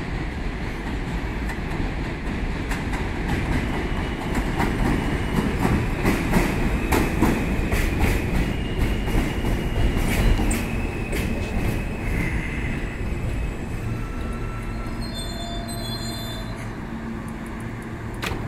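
New York City Subway R160A train on the J line, running on elevated track with a steady rumble and sharp clicks of its wheels over rail joints, plus a thin metallic squeal from the wheels on the rails. It is loudest around the middle and eases off toward the end.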